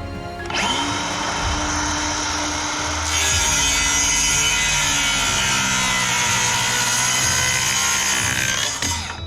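A power tool spins up about half a second in, then runs steadily as it cuts into wood, stopping near the end.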